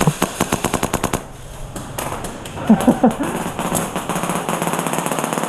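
Airsoft gun firing a rapid full-auto burst of about a dozen shots a second, lasting about a second. Quieter rapid shots continue after it, with a short shout about three seconds in.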